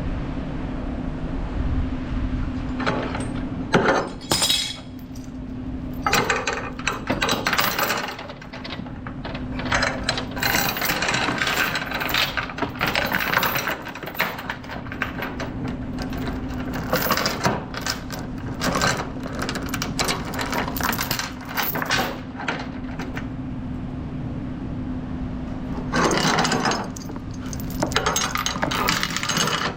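Steel tie-down chains clinking and rattling in irregular clusters as they are handled to secure a load, over a steady low hum.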